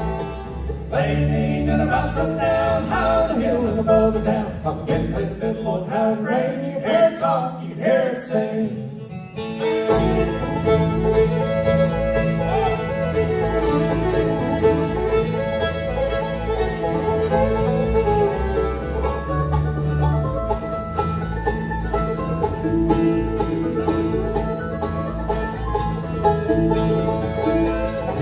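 Bluegrass band playing an instrumental passage on fiddle, banjo, mandolin, acoustic guitar and upright bass. The bass drops out for a few seconds about a third of the way in, then the full band comes back in.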